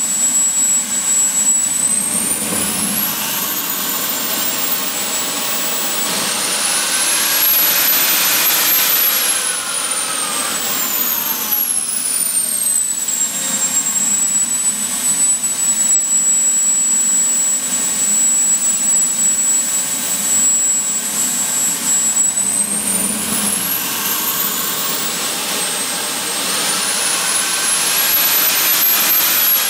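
JetCat P300-RX model turbine engine running with a high whine, throttled up and back down four times, the pitch climbing steeply and falling each time. In the middle it holds steady at idle for several seconds.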